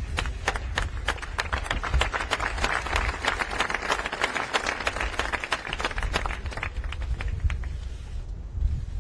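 Audience applause: many hands clapping in a dense patter that thins out near the end, over a steady low rumble.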